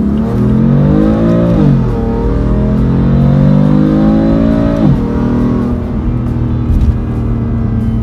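BMW M4's twin-turbo S55 straight-six accelerating hard through the gears, heard from inside the cabin: the revs climb, drop at an upshift about two seconds in, climb again toward the redline and drop at a second upshift about five seconds in, then hold steady.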